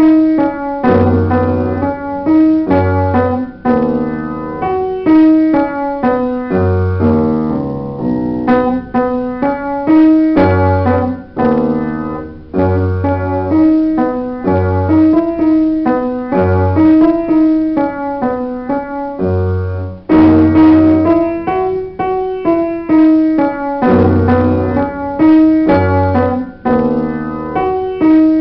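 Upright piano played solo: a melody with chords over recurring deep bass notes, including a quick downward run of notes about seven seconds in.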